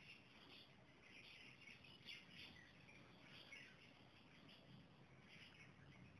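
Near silence: faint room tone with faint, short high chirps repeating throughout.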